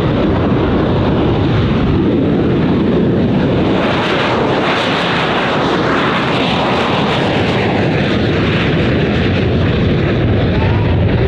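AV-8B Harrier II's Rolls-Royce Pegasus vectored-thrust turbofan at full power on takeoff. It is a loud, continuous jet roar that swells to its loudest about four to seven seconds in as the jet lifts off and passes, then eases as it climbs away.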